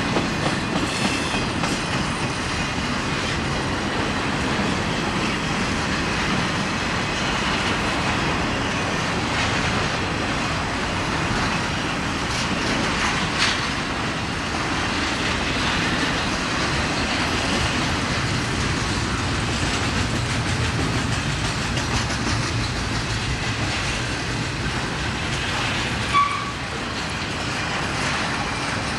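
A train's cars rolling past, wheels clicking and rumbling steadily over the rails, with a brief sharp high-pitched sound about 26 seconds in.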